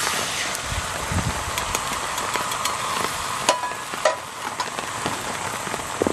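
Beaten egg hitting hot oil in a cast-iron skillet over a campfire: sizzling starts at once as it is poured in and goes on steadily while the egg fries, with scattered crackles.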